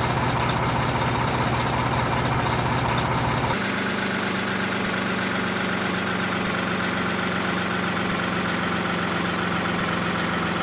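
Heavy vehicle engine idling steadily. About three and a half seconds in, the tone changes abruptly to a slightly different idle.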